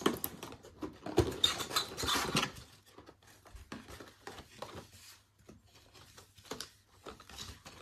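Crinkling and tearing of a foil Kayou Naruto trading-card pack being opened by hand. A dense rustle runs through the first couple of seconds, followed by scattered crackles and light clicks as the wrapper and cards are handled.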